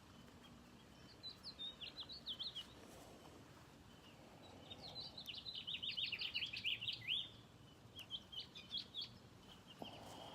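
Songbirds chirping in three phrases of quick, high, falling notes, the middle phrase the longest and loudest at a few seconds.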